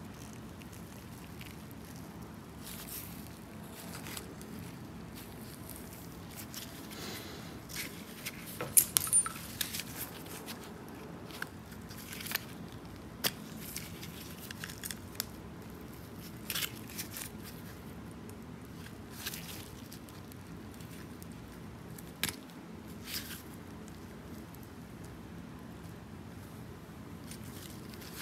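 Small metal parts of a VW mechanical fuel pump clicking and clinking as it is taken apart by hand: scattered light taps, with a cluster of sharper clicks about nine seconds in.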